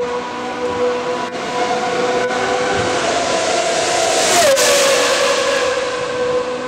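GP2 car's Mecachrome V8 engine running at steady revs with a clear, even pitch. The pitch climbs slightly, then drops sharply about four and a half seconds in before holding steady again.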